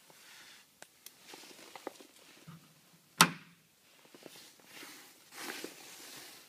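Handling sounds: scattered light clicks and rustling, with one sharp knock about three seconds in. No steady motor sound from the wheel is evident.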